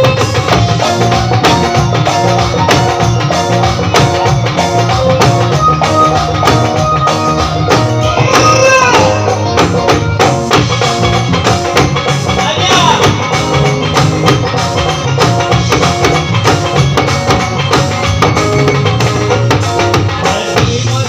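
Live band music played loud through a PA system: a drum-kit beat with electric guitar and keyboard, and a singer on a microphone.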